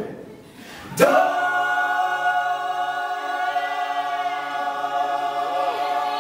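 Mixed men's and women's choir singing a cappella. About a second in, the voices come in together and hold one long chord.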